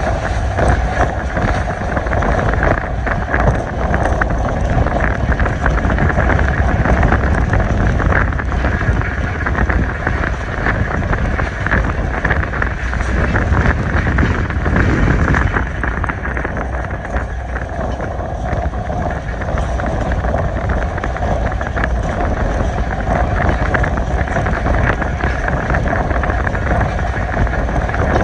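Passenger train running at speed on the line, heard on board: a steady rumble of wheels on rail with constant small rattles and clicks, and wind buffeting the microphone.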